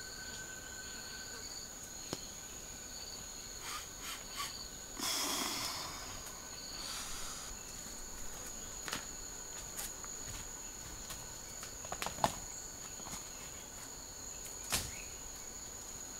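Steady high-pitched drone of forest insects, with scattered rustles and sharp clicks from someone moving over dry leaf litter. The loudest is a rustle lasting about a second, roughly five seconds in.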